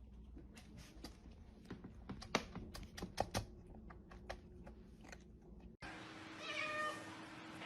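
Irregular sharp clicks and taps for about six seconds, then a cat meowing once near the end.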